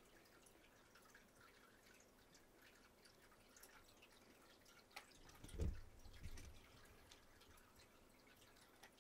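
Near-silent room tone with faint scattered small ticks. About five seconds in comes a sharp click, followed by a low thump and a softer one.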